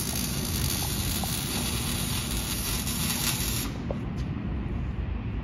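Arc welding on a vehicle's exhaust pipe: a steady crackling hiss from the welding arc that stops about three and a half seconds in, leaving only a low rumble.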